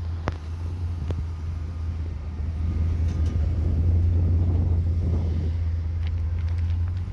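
Vehicle engine running with a steady low hum, growing a little louder around the middle, with a couple of faint clicks.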